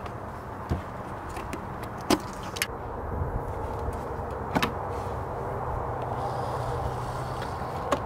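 A handful of sharp plastic clicks and knocks, about five in all and spread out, as the MAF sensor's electrical connector and a vacuum line are unplugged from a BMW N55 engine's intake, over a steady low background hum.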